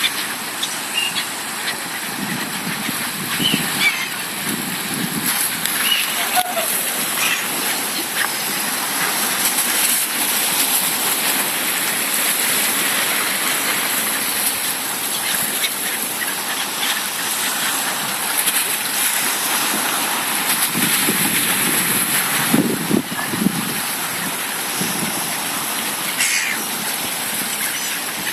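Sea surf washing against the shore: a steady rushing noise that swells now and then, with a few faint high chirps.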